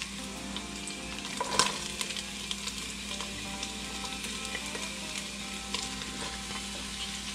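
Cubed chicken sizzling in hot oil in a pot while diced celery and onion are scraped in off a plate, with small ticks of pieces landing. One louder knock about a second and a half in.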